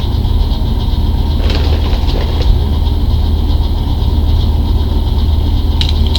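A loud, steady low hum with a few short crunches of a wavy potato chip being bitten and chewed, one cluster about a second and a half in and another near the end as a chip is bitten.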